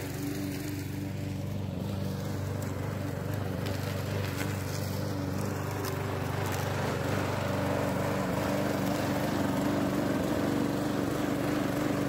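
Walk-behind rotary lawn mower running steadily while cutting grass, its deck set low.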